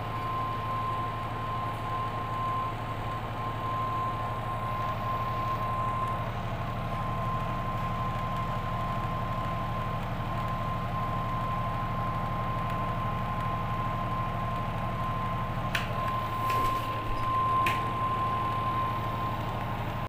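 Washing machine running on its replaced motor capacitor: a steady electric motor hum with a thin high tone above it, and a few light clicks near the end.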